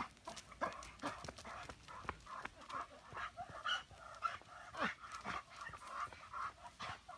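A pit bull–Labrador mix panting hard in quick, even breaths, about three a second, while straining against its leash.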